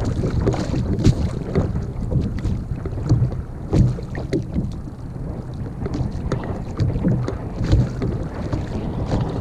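Wind buffeting the microphone of a camera mounted on a fishing kayak, with water slapping against the kayak's hull and scattered small knocks.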